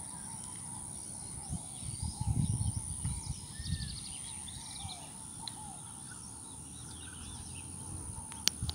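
Wild birds chirping and calling in many short, scattered notes over a steady high-pitched whine. Low rumbles and thumps on the microphone come between about one and a half and four seconds in, and there is a single sharp click near the end.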